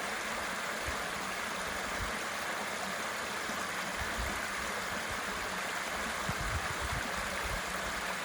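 Water rushing steadily over a pond spillway, running heavier than normal after about an inch of rain. A few brief low bumps come about six to seven seconds in.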